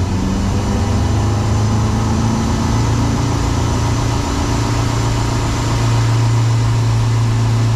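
Wake boat's inboard engine accelerating up to speed, its pitch climbing over the first few seconds, then running steadily and a little louder about six seconds in as the Perfect Pass speed control holds the set speed.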